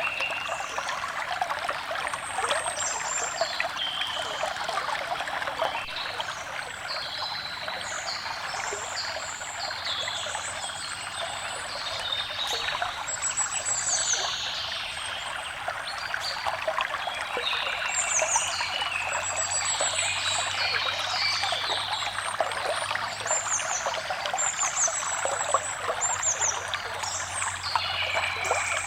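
A small stream trickling and splashing steadily, with several forest birds singing short, quick, repeated phrases over it throughout.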